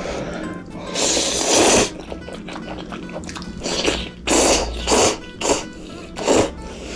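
Background music, with a long burst of hissing noise about a second in and a quick run of shorter noisy bursts in the second half.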